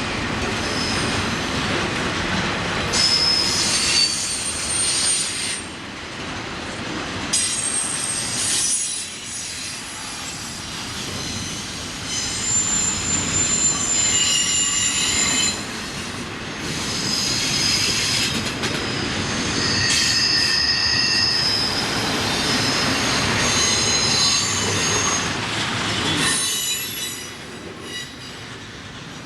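Train cars rolling past on steel rails, with rumble and clatter throughout and repeated high-pitched wheel squeals that come and go many times. The sound drops away near the end.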